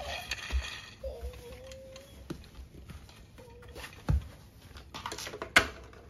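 Hard plastic toy parts being handled and set down on a plastic playset deck: scattered light clicks, with two sharper knocks in the second half.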